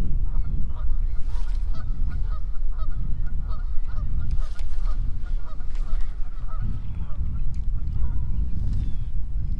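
Geese honking, many short calls in quick succession, over a steady low rumble.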